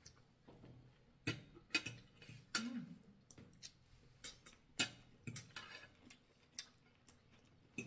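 Spoons and forks clinking and tapping against plates during a meal, in scattered light clicks.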